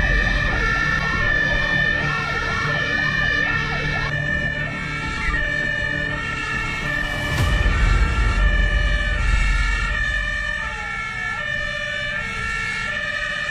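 Fire engine's two-tone siren heard from inside the cab, alternating between two pitches in a steady hi-lo cycle, with gliding rising-and-falling siren tones over it and the truck's engine rumbling underneath while it drives on an emergency run.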